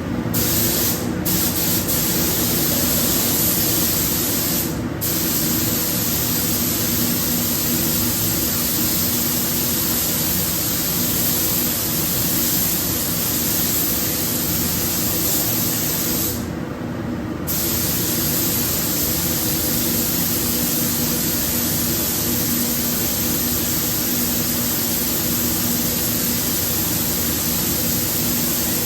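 Paint spray gun spraying the car with a steady, strong hiss of air and paint. The trigger is let off briefly about a second in, again around five seconds, and for about a second near the middle. A faint steady hum runs underneath.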